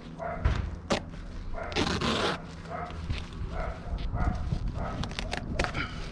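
A dog whimpering and yipping in short repeated calls, with a few sharp clicks and a brief scraping rasp about two seconds in.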